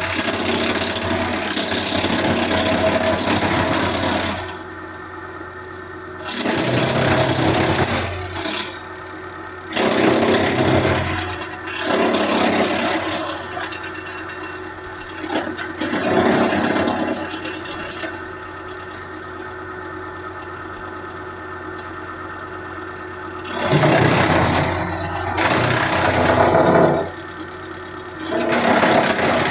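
Engine-driven hydraulic wood chipper running steadily, with repeated louder spells of a second or several as wood is fed through and chipped.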